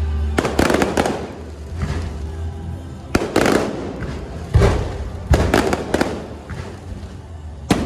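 Fireworks from an electronically fired display going off: an irregular string of sharp bangs, several close together, each echoing away.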